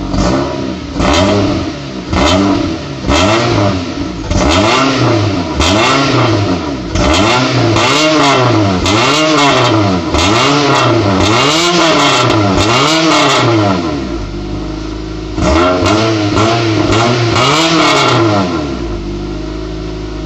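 Honda Prelude's DOHC VTEC four-cylinder heard at the tailpipes through a 4-2-1 header with the catalytic converter removed, revved repeatedly with no load. It starts with short single blips, moves to a quick run of revs, settles to idle about two-thirds through, then is revved again and drops back to idle near the end.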